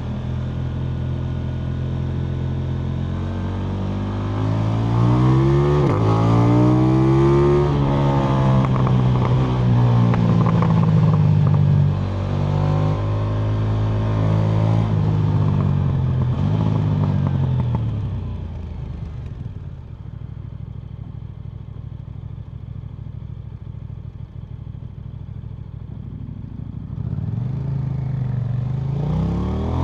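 KTM Duke 990 motorcycle engine running and being revved. The pitch rises and falls several times, then settles to a lower, quieter steady run, and climbs again near the end.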